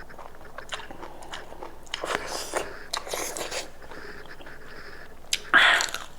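Close-up eating sounds of goat meat: chewing and biting with small wet clicks, a few short noisy bursts in the middle and a louder one near the end.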